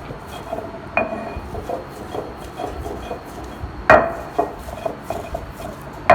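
Stone roller of a sil batta rubbing and scraping back and forth over the flat grinding stone, grinding the cooked shami kabab mixture, with sharp stone-on-stone knocks about a second in, near four seconds and at the end.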